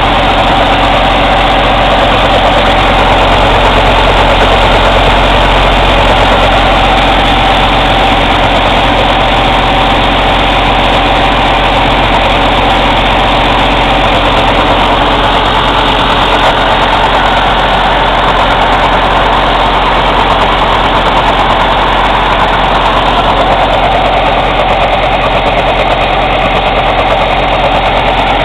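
Cummins ISX CM2250 inline-six diesel engine running steadily during a diesel particulate filter regeneration. A thin steady whine sits over the engine note and fades about halfway through.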